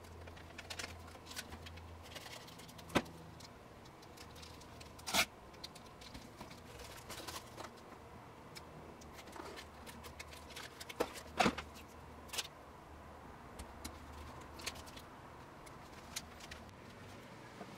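Scattered clicks, taps and crinkles from cutting Velcro strips with scissors and handling them and their plastic backing on a cutting mat; the sharpest clicks come about three, five and eleven seconds in. A faint low hum runs underneath.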